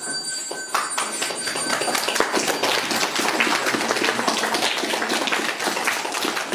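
Audience clapping, a dense patter of many hands that starts suddenly about a second in.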